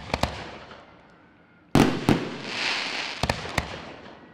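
Aerial firework shells bursting. There are a few sharp bangs at the start, then the loudest double bang about two seconds in followed by a hiss, and a few smaller pops near the end. Each bang trails off in an echo.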